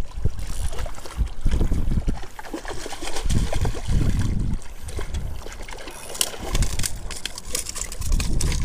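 A hooked fish splashing and thrashing at the water's surface as it is reeled in to the rocky bank, in short irregular splashes.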